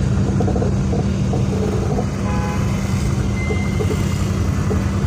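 Car driving, heard from inside the cabin: a steady low engine and road rumble with a constant low hum.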